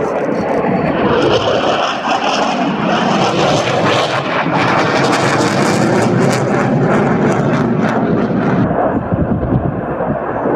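Dassault Rafale C fighter jet flying past at display power, its twin Snecma M88 turbofans making loud, continuous jet noise with a crackle through the middle. About nine seconds in, the high end drops away as it moves off.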